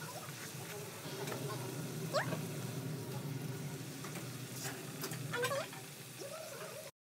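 Hot oil sizzling steadily as a puri deep-fries in an iron kadai, over a low steady hum. A few short, high rising squeaks cut through it, about two seconds in and again about five and a half seconds in. The sound cuts off abruptly just before the end.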